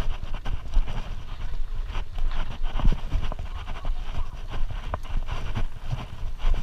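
Trek mountain bike rolling fast over a rocky dirt trail: tyres crunching on dirt and leaf litter, with irregular knocks and rattles as the bike jolts over rocks and roots. A steady low wind noise runs under it on the microphone.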